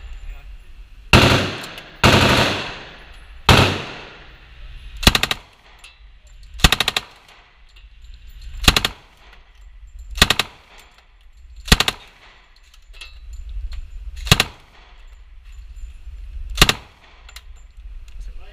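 Thompson submachine gun with a drum magazine firing about ten short bursts of a few rounds each, one burst every second and a half to two and a half seconds. The shots ring and echo off the walls of an indoor range.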